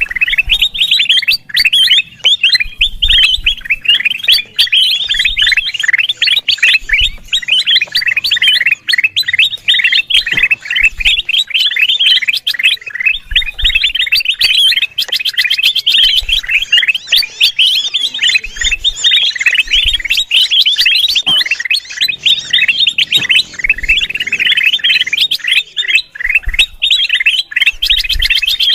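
Kutilang emas bulbul chattering without pause in a dense stream of rapid, high chirps: the agitated 'ribut' call used as a lure sound for the species. Faint low thumps occur now and then beneath it.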